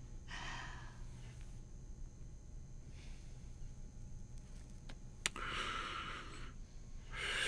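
Soft breathy exhales, several of them a couple of seconds apart, from a man smoking a cigarette, with one sharp click about five seconds in.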